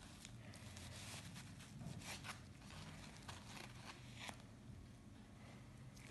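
Faint rustling and crinkling of a paper surgical drape handled by gloved hands, in several short brushes, over a low steady room hum.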